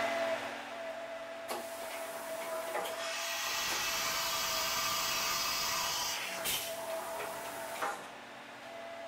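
Fadal CNC vertical machining center milling a 3-D surface in plastic with a two-flute ball end mill: a steady spindle whine over the cutting noise, with a few sharp clicks and a louder hiss from about three to six seconds in.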